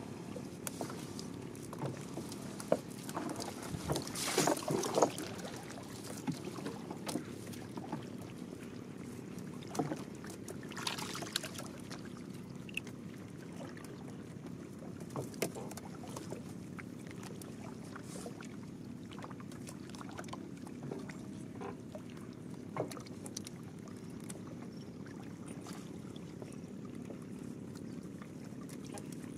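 Steady low hum of a small boat's motor on the river, with scattered knocks and two short bursts of splashing or rustling about four and eleven seconds in.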